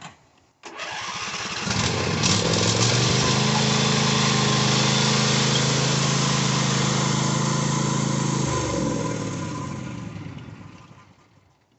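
Tractor engine starting up and running at a steady speed; about two-thirds of the way through its note drops and it fades away.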